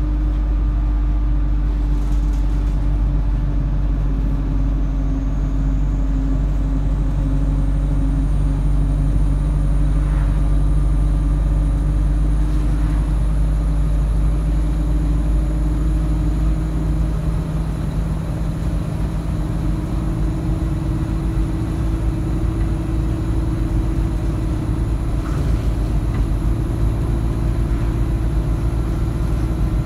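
ADL Enviro200 single-deck bus's diesel engine running under way, heard from inside the saloon as a steady drone over a deep rumble. A faint high whine rises in pitch over the first several seconds, and a little past halfway the rumble eases and the engine note steps slightly higher.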